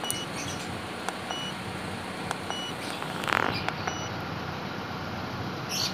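Short electronic key beeps from an Autel AutoLink AL519 OBD2 scan tool as its buttons are pressed to erase stored engine codes, a few beeps a little over a second apart, over a car engine idling steadily. A brief louder scuff a little past the middle.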